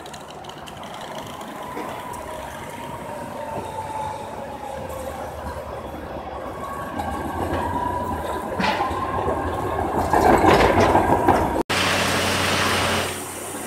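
Tram running on street rails with a steady whine that wavers slightly in pitch, growing louder. Near the end it breaks off abruptly into a steady hiss.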